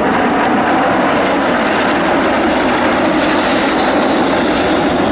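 Steady, loud jet noise from a formation of Aero L-39 Albatros jet trainers, each powered by a single turbofan, flying together overhead.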